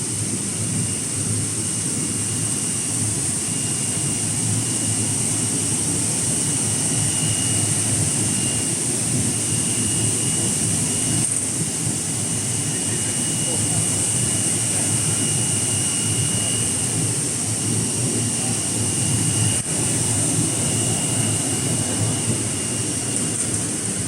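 Factory machinery running steadily: a constant hiss and rumble with a faint high whine that comes and goes.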